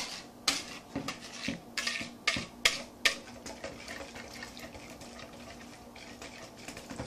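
Wire whisk beating a liquid marinade in a plastic mixing bowl. The wires click sharply against the bowl for the first three seconds, then the whisking goes on as a softer, steady swishing of the liquid.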